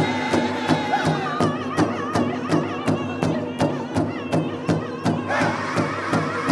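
Powwow drum group singing around a large powwow drum: a steady drumbeat about three strikes a second under a loud chorus of men's and women's voices. About five seconds in a new, higher vocal line starts.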